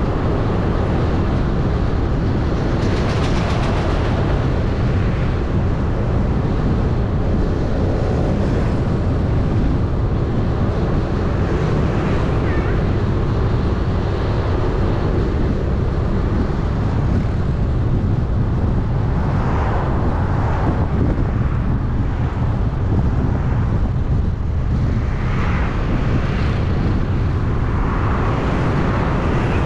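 Steady travel noise from a vehicle moving along a city street: a continuous low rumble of wind and road noise, with a few brief louder swells as other traffic goes by.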